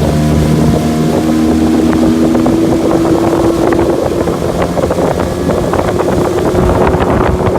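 Motorboat engine running steadily under way, with wind buffeting the microphone and crackling over it.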